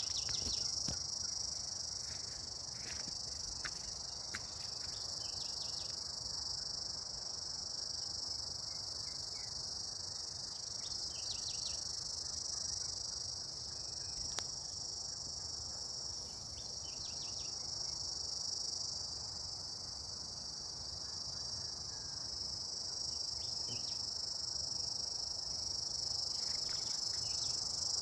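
Steady, high-pitched insect chorus that runs on without a break, with short chirps popping up here and there.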